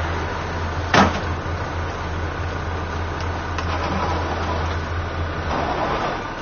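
Truck diesel engine idling with a steady low hum, with one sharp metal clank about a second in as a metal loading ramp is set against the carrier's tail, and a few faint ticks later.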